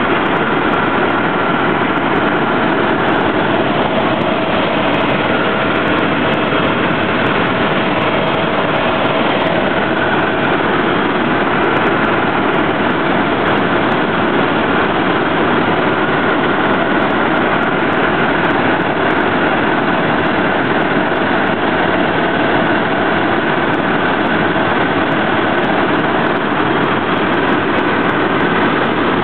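Helicopter in flight heard from inside the cabin: a loud, steady drone of engine and rotor with a couple of faint steady whines on top.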